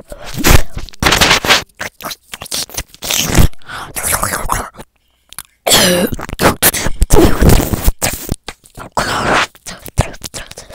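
ASMR mouth sounds made right at the microphone: an irregular run of wet clicks, smacks and breathy puffs, with a brief pause about five seconds in.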